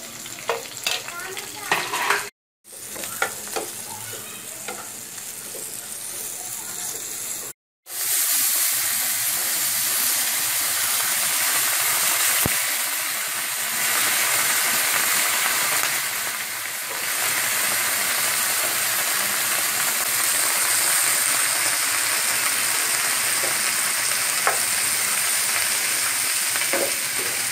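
Onions and green chillies frying in oil in a nonstick pan, with a spatula scraping as turmeric is stirred in. From about eight seconds in, a much louder, steady sizzle as chopped spring onion stalks fry in the hot pan and are stirred.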